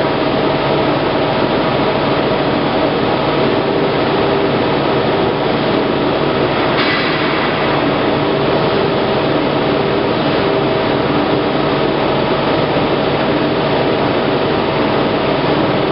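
Plate rolling machine running steadily with a constant hum and noise as its rolls turn and bend a steel sheet into a cylinder. A brief, sharper noise comes about seven seconds in.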